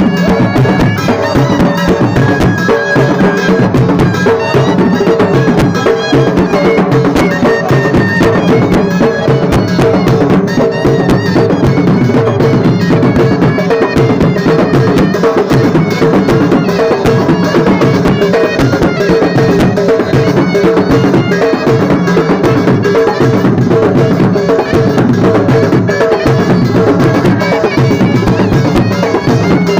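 Lewa band music: a surna, a nasal double-reed shawm, playing a continuous melody over steady traditional drumming.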